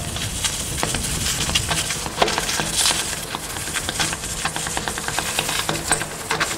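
BMX bike rolling and pivoting slowly on stone paving: tyres scuffing and grinding on the grit, with many small clicks and rattles from the bike.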